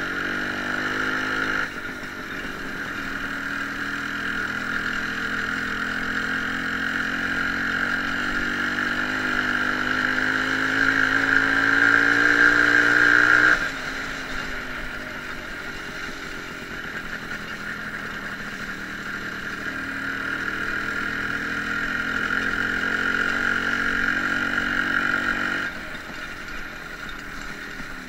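Motorcycle engine running under way. Its pitch climbs steadily as it accelerates for about ten seconds, then falls suddenly when the throttle is closed about halfway through. It climbs again and drops off once more near the end.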